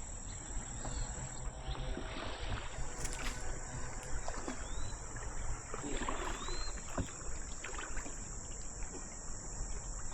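Kayak paddling and water splashing, with irregular sloshes and knocks. A steady high-pitched drone of insects runs underneath.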